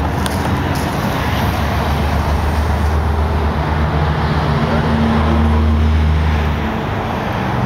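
Steady road traffic noise. One vehicle's engine drone grows louder from about halfway through, then fades near the end.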